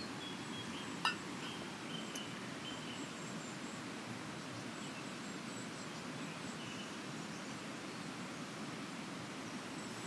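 A river flowing steadily, its rush low and even. Faint high calls of birds or insects come and go, and there is a single sharp click about a second in.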